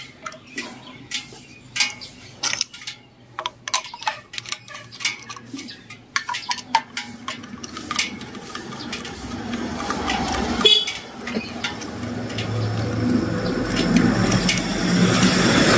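Light metallic clicks and taps of a screwdriver working the screw terminals of a generator's voltage regulator. From about halfway, an engine noise grows steadily louder and becomes the loudest sound near the end.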